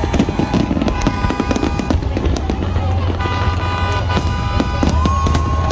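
Fireworks going off in a dense, continuous barrage of crackles and bangs over a low rumble, with music playing.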